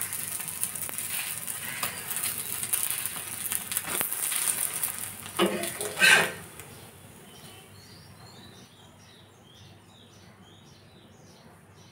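Egg sizzling in oil on a flat iron griddle pan, with a metal spatula scraping under it about four and six seconds in. The sizzling stops a little after the second scrape, leaving a bird chirping faintly and repeatedly.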